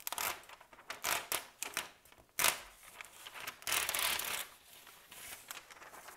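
Sheets of paper rustling and sliding on a desk as they are moved and rearranged by hand, in several irregular brushes. The longest rustle comes about four seconds in.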